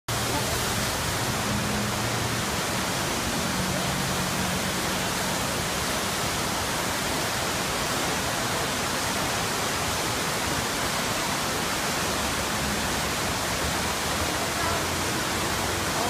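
Water pouring down the tiers of an ornamental rock waterfall into its pool: a steady, unbroken rush.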